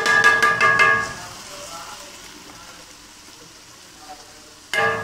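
A pan of fried mince and vegetables sizzling on a gas stove as tomato paste is poured in and stirred with a wooden spatula. Over the first second a loud, pulsing melody plays and then stops. A short scrape comes near the end.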